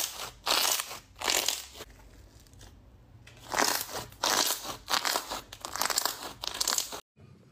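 Thick glossy slime being squeezed and folded by hand, in a run of wet squelches and crackles. It pauses for about a second in the middle and cuts off suddenly near the end.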